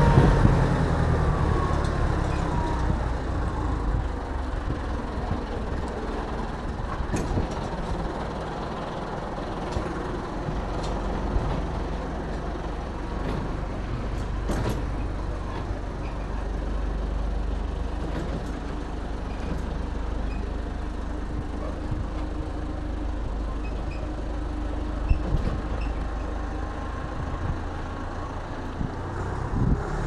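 Street traffic noise: a steady low rumble of road vehicles, with a few short clicks.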